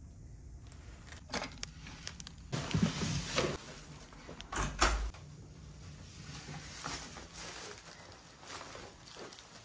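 Hotel room door being opened, with clicks and rustling, then swinging shut with a sharp latch click and a deep thud about five seconds in.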